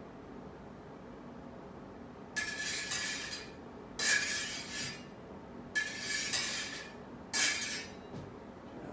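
Smallsword blades meeting and sliding against each other, steel on steel: four short ringing scrapes, each about a second long. These are the master's engagements of the student's blade in a thrust-on-engagement drill.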